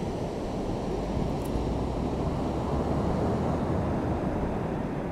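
Wind buffeting the microphone over the steady rush of sea surf on a beach, an even noise with a low rumble and no distinct events.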